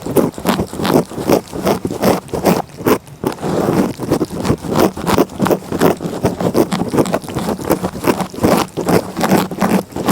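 Cat licking right against a microphone: a rapid, irregular run of rasping tongue scrapes, several a second, with a few brief pauses.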